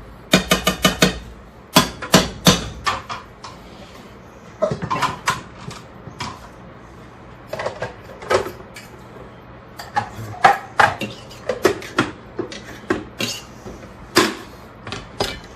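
Cooking utensil knocking and scraping against a pan: a quick run of about six taps near the start, then scattered knocks and clatter.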